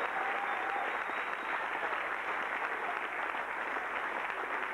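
Audience and cast applauding, a steady clapping.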